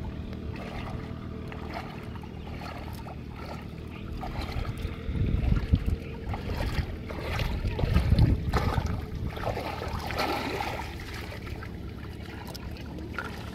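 Shallow water splashing and sloshing as hands work down in a flooded rice paddy and legs wade through it, with louder splashes about five and eight seconds in.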